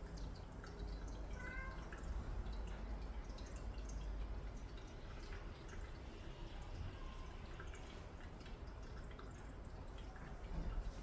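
A cat lapping water: a continuous run of small wet ticks and drips.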